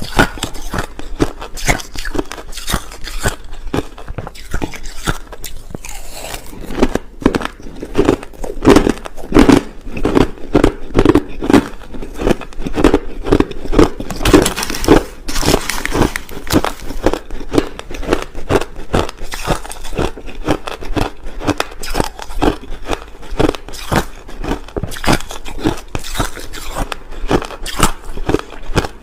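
Crushed ice being bitten and chewed close to the microphone: a rapid, irregular stream of crunches and crackles that grows busiest and loudest from about seven seconds in to about sixteen seconds in.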